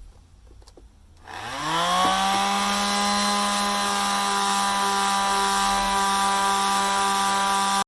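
An electric power tool's motor spinning up to speed about a second in, rising quickly in pitch, then running steadily at full speed until it cuts off suddenly.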